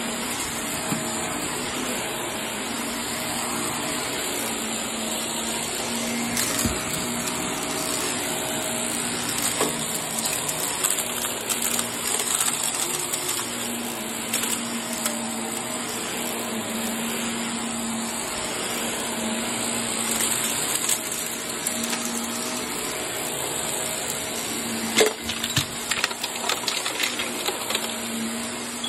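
Bagless upright vacuum cleaner running steadily as it is pushed over carpet, a continuous rushing noise with a faint whine. Near the end there is a brief cluster of clicks and rattles.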